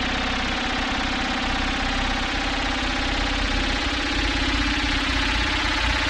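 Synthesized cinematic sound effect: a dense, sustained drone of several steady tones layered over hiss, growing slightly louder toward the end.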